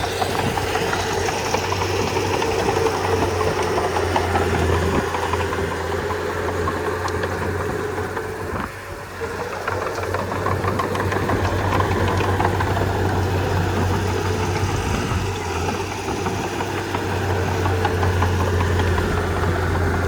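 Komatsu D31P bulldozer's diesel engine running steadily, with a brief drop in loudness about nine seconds in.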